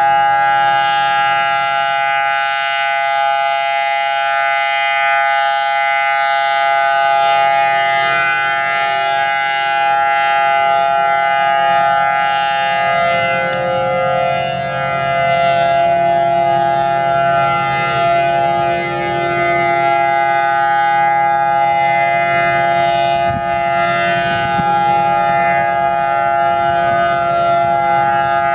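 Federal Signal Thunderbolt 1000AT rotating tornado siren sounding a steady alert tone, a held chord of several notes with a low rumble beneath. It swells and dips in loudness as the rotating horn sweeps around.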